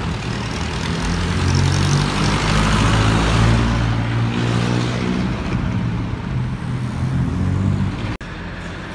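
Jeepney's diesel engine running as it drives past on the street, a low steady drone with tyre and road noise that builds to its loudest about three seconds in and then eases off. The sound drops suddenly just before the end.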